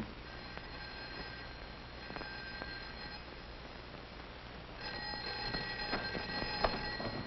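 Telephone bell ringing, the ring repeating and louder from about five seconds in.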